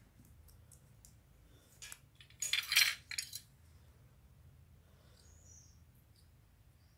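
Small plastic model-kit parts clattering against a hard tabletop in two short bursts about two and a half seconds in.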